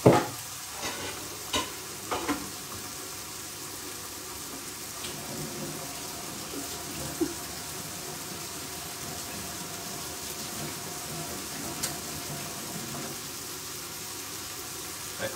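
A soffritto of chopped celery, greens and garlic sizzling steadily in oil in a frying pan. There are a few sharp knocks in the first couple of seconds and single clicks later on.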